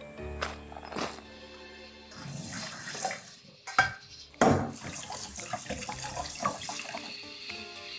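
Kitchen tap water runs into a stainless steel mesh colander, rinsing blocks of acorn jelly, starting about two seconds in. A couple of sharp knocks of metal bowls in the sink come around the middle.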